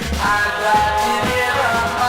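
A 1963 pop record playing: a band with a steady bass and drum beat under held melody notes that start about a quarter of a second in.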